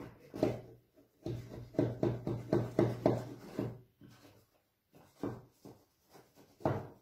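A knife scraping around the inside wall of a metal chiffon cake tube pan, loosening the baked sponge from the sides. The strokes come quickly for the first few seconds, then grow sparser.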